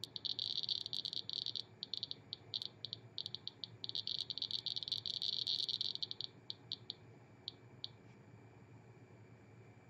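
MyGeiger DIY Geiger counter's piezo buzzer beeping for each detected count. It gives a fast, almost unbroken stream of short high beeps, the sign of a high radiation level. The beeps thin out to a few scattered ones about six seconds in and stop near eight seconds.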